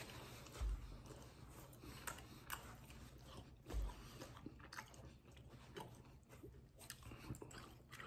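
A man chewing a slice of Philly cheesesteak pizza: faint, scattered mouth clicks of biting and chewing. Two low thumps come, about a second in and near the middle.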